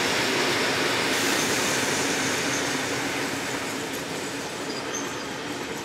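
Wooden-bodied heritage passenger carriages rolling past on the track, a steady rumble of wheels on rail that slowly fades as the train moves away.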